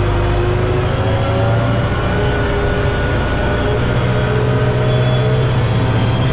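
Arbos tractor's diesel engine working steadily under plough load, heard from inside the cab: a constant low drone with a faint whine that drifts slightly in pitch.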